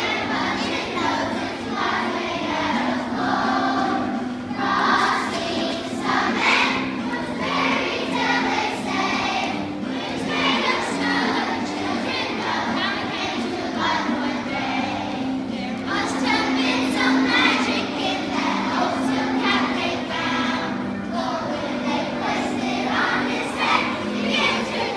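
A large group of schoolchildren singing a Christmas carol together as a choir.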